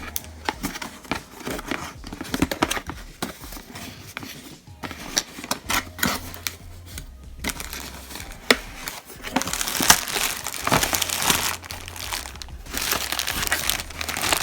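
Product packaging being opened and handled: irregular crinkling and rustling of the box and its wrapping, with scattered clicks. The rustling grows louder and busier about ten seconds in and again near the end.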